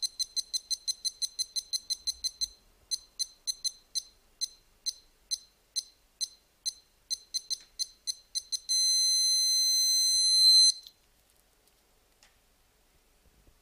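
Timex Datalink 150 wristwatch's beeper giving short high beeps, first rapid and even at about five a second, then sparser and uneven, then one loud steady beep of about two seconds as it takes in data flashed from an LED adapter. The long beep marks the end of the transfer.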